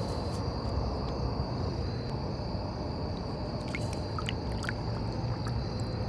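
Crickets giving a steady, unbroken high trill over a low rumble of microphone handling noise, with a few light clicks about four seconds in.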